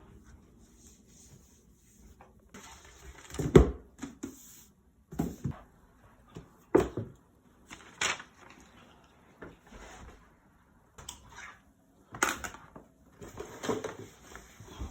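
Things being handled and put away while tidying a room: irregular knocks and clunks, the loudest about three and a half seconds in, with rustling between them.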